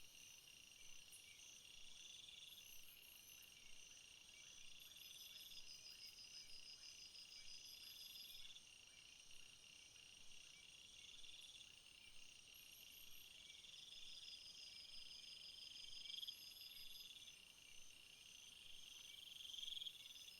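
Faint summer field insect chorus: crickets trilling steadily, with a buzzing song that swells and cuts off about every two seconds.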